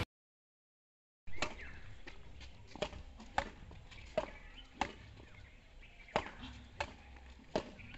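Badminton rackets hitting a shuttlecock back and forth in a rally: a string of sharp pops, roughly one every second or less. It follows about a second of silence.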